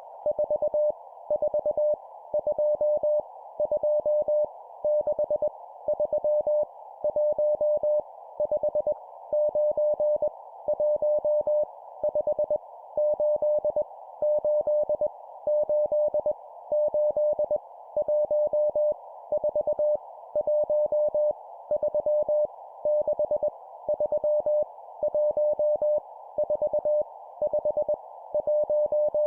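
Morse code (CW) random digits sent at 20 words per minute as a single steady audio tone keyed on and off in dots and dashes. Each digit is a short cluster of dots and dashes with a brief pause before the next, over a steady band of hiss.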